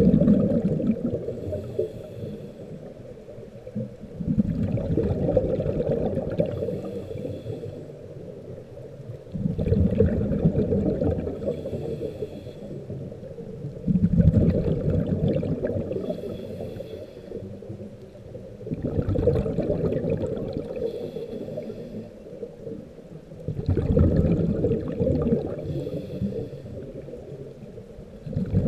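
Scuba breathing heard underwater through the regulator. A bubbly rush of exhaled air comes about every five seconds, five breaths in all, with a fainter high hiss of each inhale in between.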